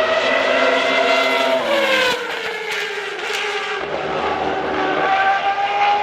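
Renault 3.5-litre V10 of a 1992 Williams FW14B Formula 1 car running at high revs. The pitch falls from about two seconds in, then climbs steadily again from about four seconds.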